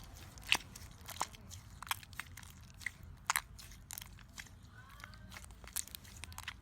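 Chocolate slime being worked by hand, giving irregular sharp pops and crackly clicks, about one to several a second.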